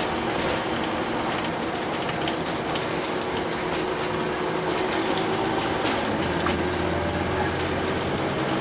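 Scania OmniCity double-decker bus's diesel engine and driveline running as it drives, heard from inside the passenger saloon, with steady interior rattles. About six seconds in a deeper hum comes in as the engine note changes.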